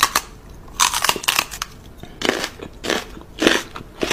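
A man making rough mock-biting mouth noises on a dog's paw: a run of crunching bursts, about one or two a second.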